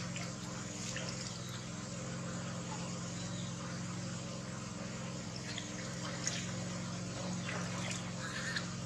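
Water splashing and dribbling in a plastic tub as a hand scoops it over a wet baby monkey, over a steady low hum.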